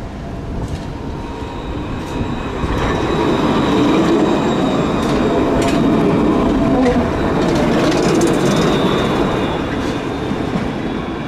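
Alstom Citadis tram passing close on curved track. The rolling and running noise swells about three seconds in and eases off near the end, with a faint high wheel squeal and a few sharp clicks from the wheels on the rails.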